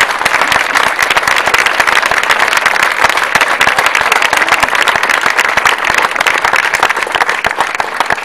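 A small crowd applauding: dense, fast hand clapping that keeps up steadily throughout.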